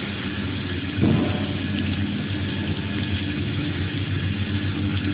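Steady low mechanical hum of background machinery, with one short clunk about a second in.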